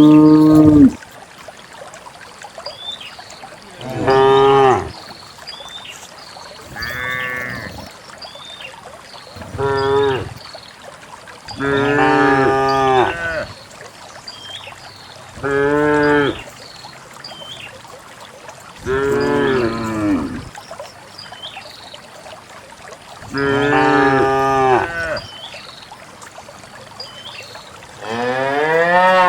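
Cows mooing: about nine long moos, one every few seconds, at differing pitches. The last one rises in pitch.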